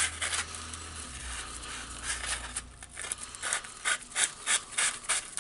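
Sanding paper rubbing on the commutator of a cordless drill's motor armature as the armature is spun by hand, cleaning the commutator. A steady scratchy rub that turns into short repeated strokes, about three a second, after two and a half seconds.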